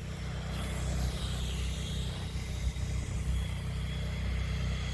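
Rlaarlo RC rally car driven wide open across snow: its electric motor gives a faint whine that rises and falls over a steady low rumble.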